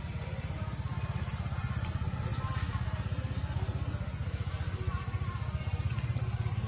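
A small engine running steadily: a low, fast-pulsing rumble.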